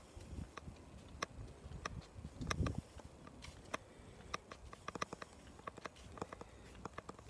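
Footsteps on pavement while walking, heard as irregular light taps and clicks, with a brief low thump about two and a half seconds in.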